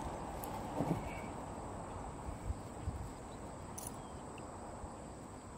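Riverside ambience: a steady hiss of moving water with a faint, steady high-pitched whine above it, and a few small knocks and splashes as a small fish is lifted out of the water and handled.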